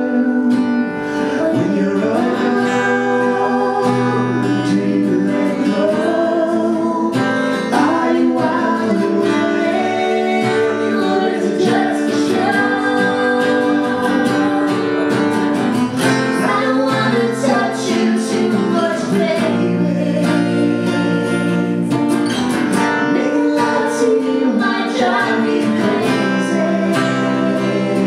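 Acoustic guitar strummed as accompaniment to a song sung by a man and a woman together, played live.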